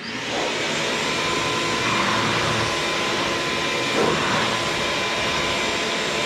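Compressed-air blow gun hissing steadily with a faint whistle, blowing dust and debris off a workbench.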